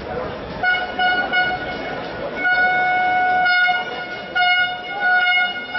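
A horn sounding one steady high note in about four blasts, the longest about a second, over background voices.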